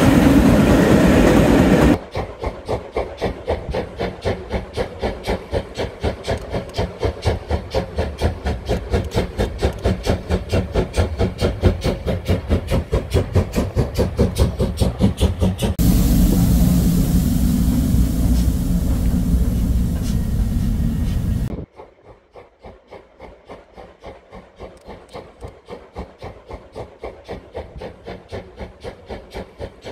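Class 41 steam locomotive working a train: a steady run of exhaust chuffs, about four a second, after a couple of seconds of coaches rumbling past. A few seconds of louder steady rushing noise break it past the middle, then the chuffing carries on more faintly near the end.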